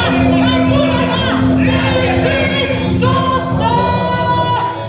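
Many voices of a congregation singing and calling out together over music, with a steady held low note underneath and long held higher notes near the end.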